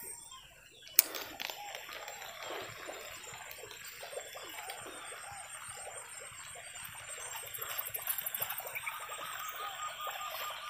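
Water trickling and lapping at a river's edge, a steady crackly patter, with one sharp click about a second in. A faint, thin repeated chirping comes in near the end.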